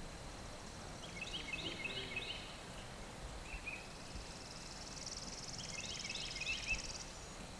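Faint outdoor ambience: a songbird gives two runs of quick chirping notes, about a second in and again near the end, with a single short chirp between them, over a high, fast-pulsing insect buzz that swells in the second half.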